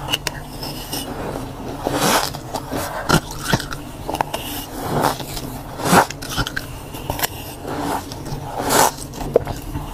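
Freezer frost being bitten and chewed off a metal spoon: a series of crunches about once a second, the loudest a little past the middle.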